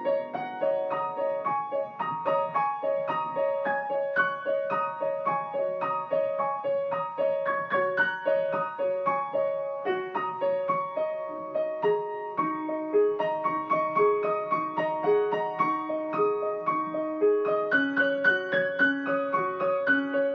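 Solo piano playing an improvised piece: one upper note repeated about twice a second over lower notes that shift every second or so.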